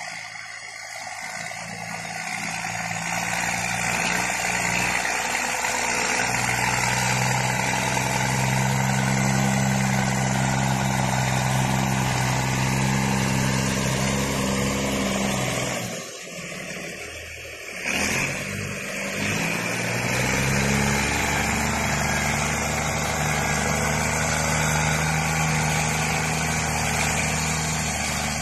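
New Holland T6050 tractor's diesel engine running as the tractor pushes gravel with a front blade. It gets louder over the first few seconds as the tractor comes near, dips briefly about two-thirds through, and the engine note shifts pitch just after.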